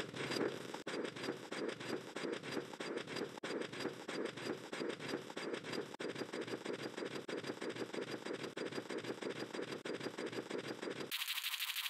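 Chaotic edited audio made from many sped-up copies of a cartoon clip layered on top of one another, giving a dense, grating pulse of about five beats a second. Near the end it switches suddenly to a thin, fast, high buzz.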